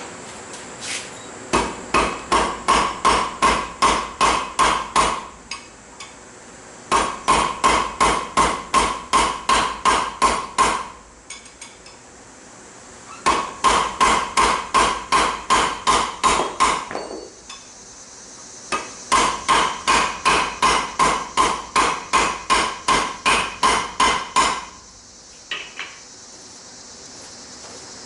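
Blacksmith's hammer forging steel on an anvil. Four runs of quick, even blows come at about three a second, each blow ringing, with pauses of a second or two between the runs.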